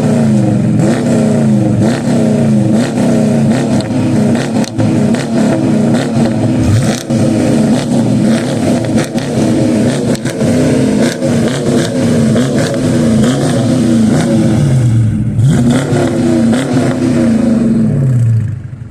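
Dodge 5.7 Hemi V8 being revved hard and repeatedly through its exhaust, with blip after blip rising and falling in pitch, the exhaust valves open for full volume. The revving keeps on with a flutter in it, then drops back to idle near the end.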